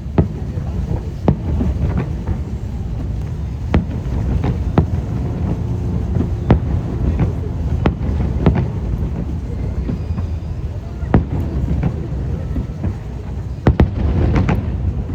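Aerial fireworks shells bursting in sharp bangs at irregular intervals, with a quick cluster near the end, over a steady low background noise.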